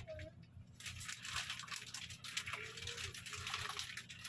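Packaging crinkling and rustling as a boxed item is handled and unwrapped: a dense run of quick crackles starting about a second in.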